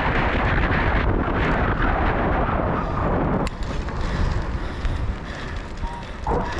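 Wind buffeting the microphone of a bike-mounted camera while a cyclocross bike is ridden fast over rough ground, mixed with tyre and trail noise. The rush eases about halfway through, with a sharp click as it drops.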